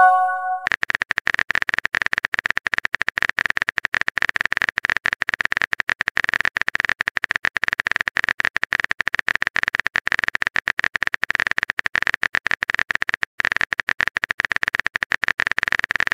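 Keyboard typing sound effect: a long run of rapid, even clicks with a short break about thirteen seconds in, like a chat message being typed. It opens with a brief chime of a few steady tones, like a message arriving.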